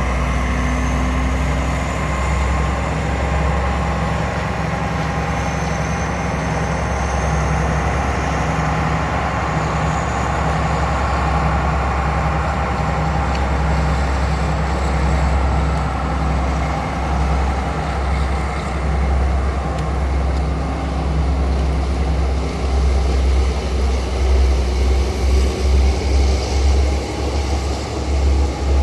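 A motor vehicle running steadily: a constant low rumble with a few faint engine tones above it. The rumble grows uneven for the last few seconds.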